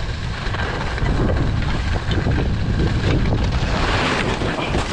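Wind buffeting an action camera's microphone with skis hissing and scraping over packed snow; near the end a louder hiss of spraying snow as the skier goes down.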